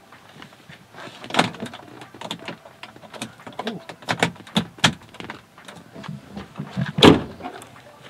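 Clicks, rustles and knocks of a power cord being handled and plugged into a pickup truck's dashboard 12-volt socket, with a louder thump about seven seconds in.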